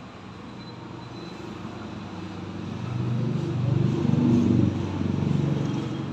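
A motor vehicle engine running at low pitch, growing louder over the first few seconds, loudest around the middle, then easing off.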